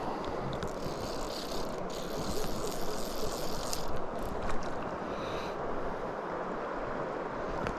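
Steady rush of river water and wind on the microphone, with faint clicks and rustles between about one and five and a half seconds in.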